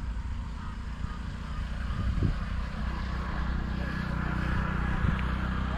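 Steady low rumble of wind buffeting the microphone, with an even hiss above it and two soft bumps, about two and five seconds in.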